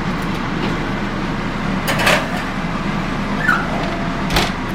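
Steaks sizzling in a hot pan over a steady low hum, with a couple of brief utensil clatters, one about two seconds in and one near the end.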